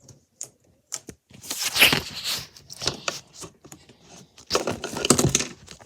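Handling noises from slime-making supplies: a few light clicks, then two longer noisy scraping rustles.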